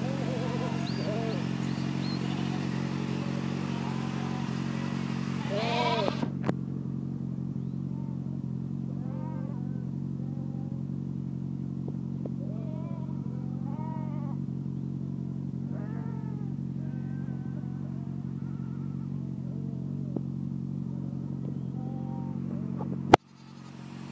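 BMW motorcycle engine idling steadily, with a flock of sheep bleating over it again and again, loudest about six seconds in. Near the end a sharp click, after which the sound briefly drops away.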